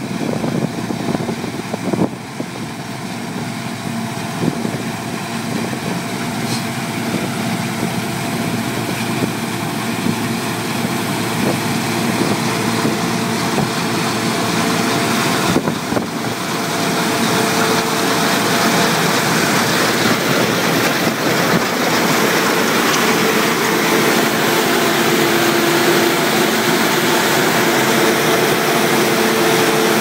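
Claas Lexion 600 combine harvester running steadily under load while harvesting and unloading wheat, a dense machine drone with engine tones that grows gradually louder.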